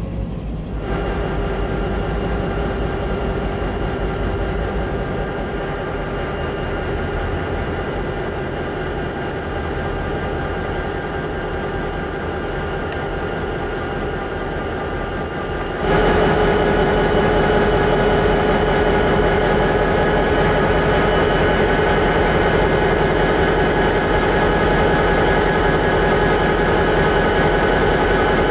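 Reading & Northern EMD diesel locomotives, led by a GP39RN, running as they roll slowly past: a steady engine drone with several held tones. The sound jumps louder about halfway through.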